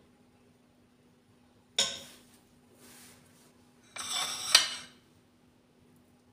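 Metal spoon against a glass plate while rice is served: a sharp clink about two seconds in, a soft scrape around three seconds, then a scraping clatter near four seconds that ends in the loudest clink. A faint steady hum runs underneath.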